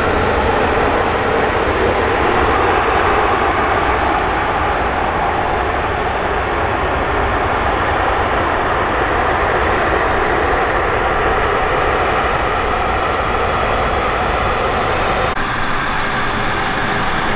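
Embraer E190 airliner's two GE CF34 turbofan engines running, a loud, steady noise with no break. About fifteen seconds in, the sound cuts abruptly to a thinner engine sound with less low end.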